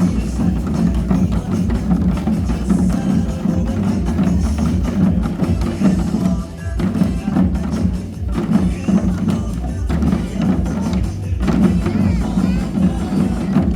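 Korean amateur percussion ensemble playing drums in a steady, driving rhythm, with sharp stick clicks over a full, low drum sound.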